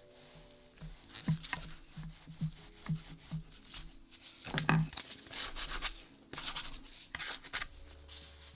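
A thin wooden dowel and plastic-gloved hands working bread dough on a wooden board: soft rubbing and scratching with a run of light taps, the loudest a knock about halfway through.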